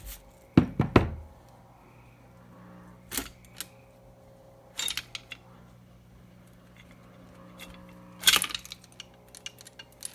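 Scattered knocks and clacks of hand tools and metal engine parts while the cylinder is worked off a KTM 450 single-cylinder engine on the bench, the loudest a quick few clacks about a second in and a cluster about eight seconds in, over a faint steady hum.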